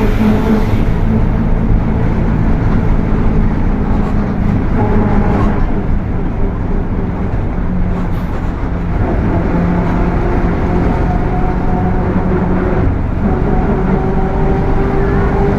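Mercedes-Benz OF 1721 BlueTec 5 bus's diesel engine running under way, its transmission growling loudly. Several steady tones climb slightly in pitch over the second half.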